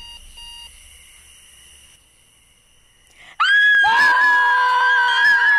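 A digital alarm clock beeps twice in short high beeps. About three and a half seconds in, a long, loud, high-pitched scream breaks out and is held.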